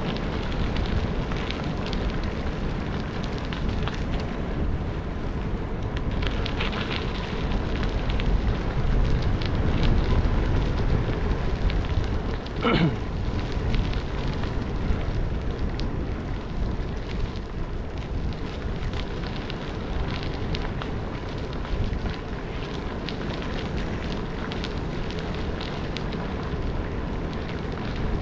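Wind buffeting a helmet-mounted action-camera microphone along with tyre rumble from a bicycle riding a path, peppered with small clicks and rattles. About halfway through, a short tone slides sharply down in pitch.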